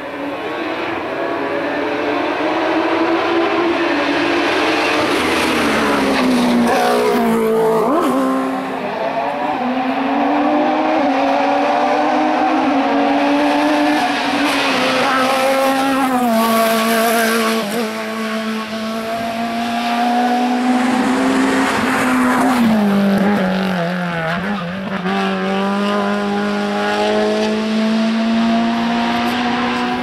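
Hill-climb race car engine running hard up the course, its pitch sweeping up and down with throttle and gear changes, with two marked drops in pitch, about six and twenty-three seconds in.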